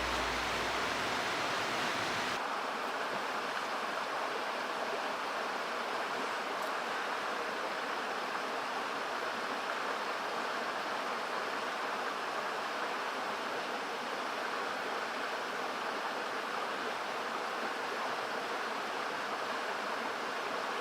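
Mountain stream rushing steadily, an even, unbroken wash of flowing water.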